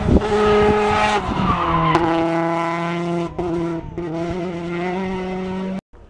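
Rally car engines running hard as the cars pass on the stage, their pitch stepping down about two seconds in. The sound cuts off suddenly near the end.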